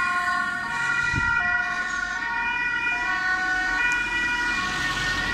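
German fire-brigade two-tone siren (Martinshorn) sounding on an emergency run, alternating between a low and a high tone about every three-quarters of a second.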